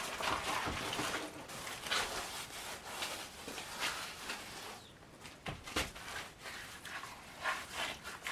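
Wet rag scrubbed back and forth over rough old log timbers in repeated rubbing strokes, soaking the leftover cement dust and wallpaper scraps so they come away. The rubbing is steady for about five seconds, then thins to a few separate strokes.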